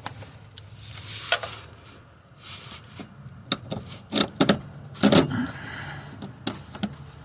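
Small metal hardware clinking and scraping in a series of separate sharp clicks, the loudest about four to five seconds in, as a bolt, washers and a heim joint are worked onto a transfer case shifter linkage by hand.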